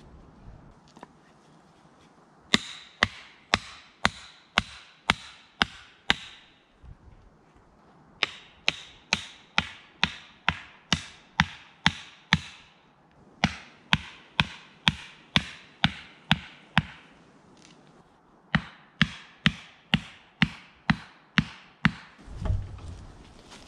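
Repeated hammer blows driving a stake into the ground, in four runs of seven to nine strikes about two a second with short pauses between them; in the first runs each strike rings briefly. A dull thump near the end.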